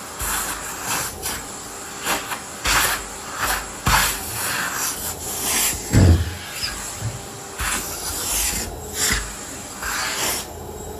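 Irregular rubbing and scraping strokes from household cleaning, in short bursts with pauses, and one dull thump about six seconds in.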